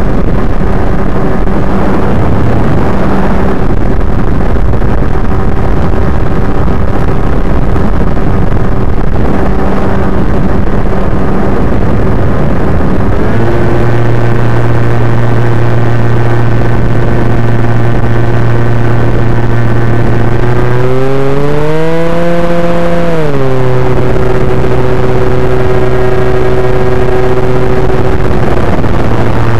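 Electric motor and propeller of an FPV model plane running in flight, a steady droning whine over a rush of noise. About halfway through the pitch steps to a new setting, and later it briefly rises and falls back as the throttle changes.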